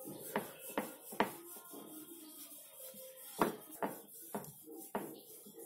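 Wooden rolling pin rolling out samosa dough on a wooden board: a soft rubbing broken by scattered light knocks of wood on wood.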